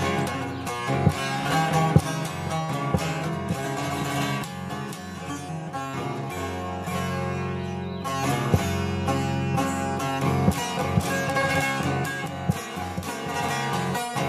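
Divan sazı, the large long-necked Turkish bağlama, played with a plectrum in rapid picked strokes: a solo folk melody, a little softer in the middle and picking up again about eight seconds in.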